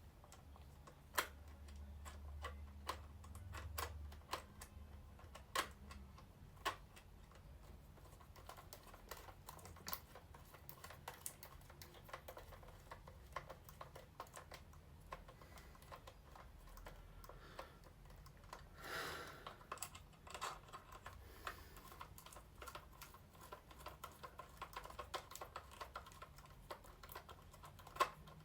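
Faint, irregular clicks and taps of a plastic Buzz Lightyear action figure being handled and its parts worked, with a brief rubbing scrape about two-thirds of the way through.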